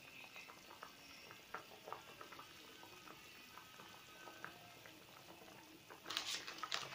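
Fish broth boiling hard in a wok: a faint, steady bubbling with many small pops. Near the end comes a brief, louder scratchy rustle.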